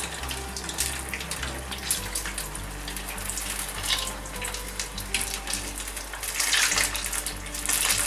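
Battered cauliflower pieces deep-frying in hot oil: a steady sizzle with scattered crackles, louder near the end.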